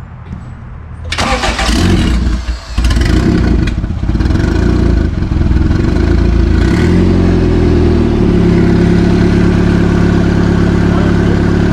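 Turbocharged Honda B20 VTEC four-cylinder engine cranking for about a second and a half, catching a little under three seconds in, then running loud and steady, settling to a lower idle about seven seconds in.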